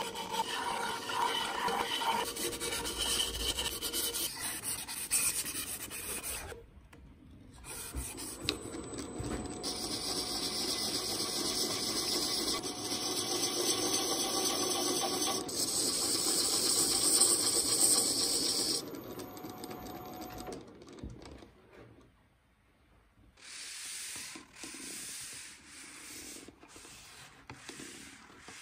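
Abrasive strip rubbed by hand through the twisted stem of an apple-burl goblet, a dry rubbing. From about eight seconds in, a steady hiss of a small tool held against the apple wood spinning on the lathe, which stops sharply near nineteen seconds. Near the end, a run of short rubbing strokes of a paper towel wiped over the wood.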